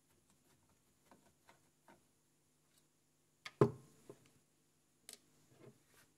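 Small clicks and taps from handling an opened Unitra AT9100 stereo receiver's chassis and parts on a workbench, with one louder knock about three and a half seconds in.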